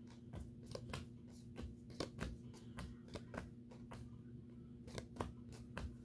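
Playing cards dealt one at a time from a hand-held deck onto two piles: a run of soft card snaps and slaps, about two or three a second.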